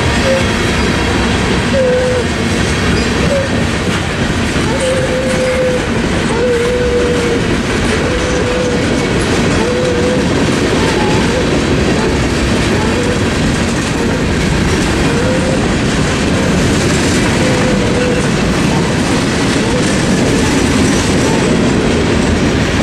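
Cars of a Norfolk Southern mixed freight train rolling past at close range: a steady loud rumble and clatter of wheels on the rails. Short, wavering squeals from the wheels come every second or two.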